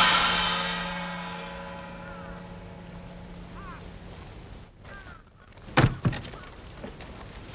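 A gong struck once, ringing and slowly dying away over about three seconds. Two short, loud sounds follow about six seconds in.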